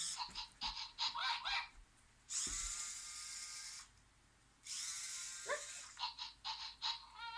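Remote-controlled toy robot dog: its small motor whirs in stretches of about a second and a half, three times, with quick rising electronic chirps and clicks in between.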